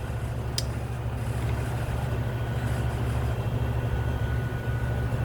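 Steady low mechanical hum, like a running motor or air-conditioning unit, with a single short click about half a second in.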